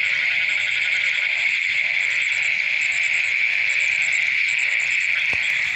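Dense, steady chorus of calling insects, with short trains of high, rapid chirps coming every second or so.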